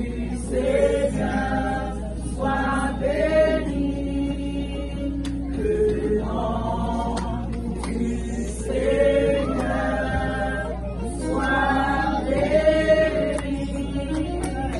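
Church choir singing a gospel hymn in sung phrases of a couple of seconds each, over a steady low hum.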